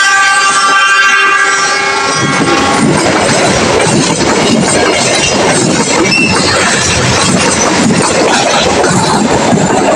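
Passenger express train running through the station without stopping, passing close by: its locomotive's horn blares a held, several-toned note that cuts off about two and a half seconds in. After that there is the steady rushing clatter of the coaches' wheels on the rails.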